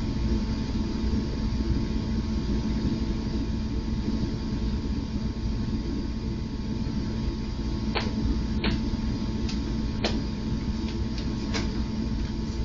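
Steady electrical hum and hiss from a security camera's built-in microphone, with a few light clicks starting about eight seconds in.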